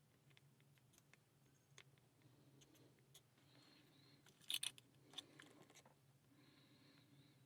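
Faint, scattered metallic clicks of a pick and tension tool working the pins of a Schlage pin-tumbler lock, with a brief louder clatter about four and a half seconds in, over a faint low hum.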